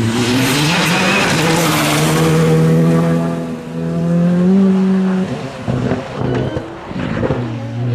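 Rally car engine pulling hard at high revs, with a hiss of tyre and road noise over it. About five seconds in the engine note drops away and comes and goes unevenly, then picks up again near the end.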